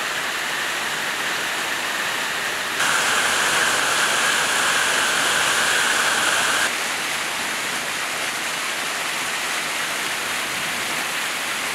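Heavy rain, with rainwater running down a flight of outdoor steps in a cascade: a steady rushing hiss. It turns louder and brighter about three seconds in and drops back after about four seconds.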